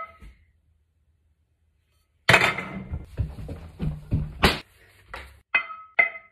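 Frying pan struck like a snare drum: a metallic clang with a short ringing tone right at the start, then silence. About two seconds in comes a burst of clattering knocks and thumps, and near the end a few evenly spaced clangs that ring with the same tones.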